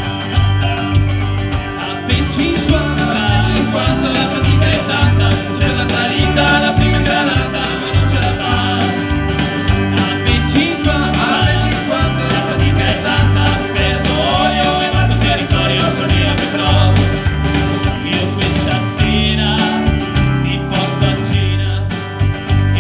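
Live Oberkrainer-style pop-rock band playing an upbeat instrumental passage: Yamaha keyboard, electric guitar and electric bass over a steady, driving beat.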